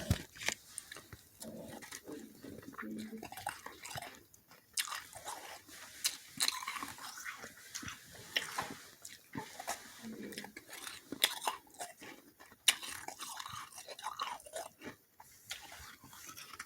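Close-up chewing of soft, slushy freezer frost ice: irregular soft crunches and bites.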